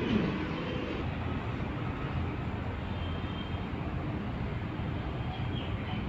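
Steady rumbling noise of a train, with a short falling tone right at the start.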